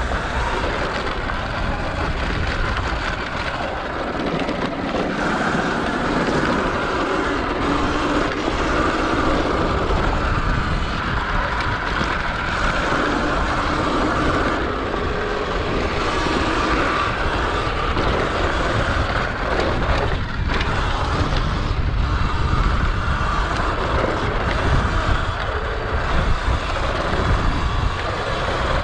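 Sur Ron X electric dirt bike being ridden downhill over rough ground: a steady mix of low rumble and wind on the microphone, with no speech.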